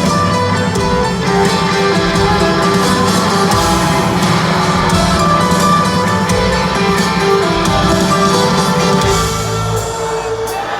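Live rock band playing an instrumental passage, with strummed electric guitar, bass and drums, heard loud from the audience; it eases off slightly near the end.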